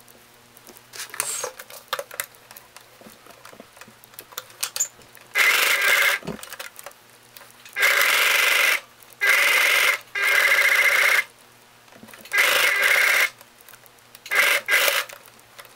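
Electric domestic sewing machine stitching through layered cotton and jersey fabric in six short runs of about a second each, stopping and starting as the seam is guided along. In the first few seconds, before it starts, there is rustling and handling of the pinned fabric.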